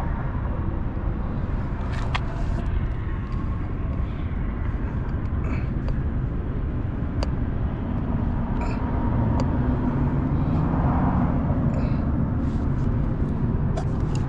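A steady low rumble with a few small clicks and taps as a screwdriver pries at a plastic wheel center cap, with a quick run of clicks near the end.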